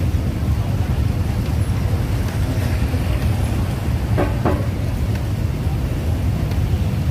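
Steady low rumble of heavy vehicles passing close by, with two short horn beeps about four seconds in.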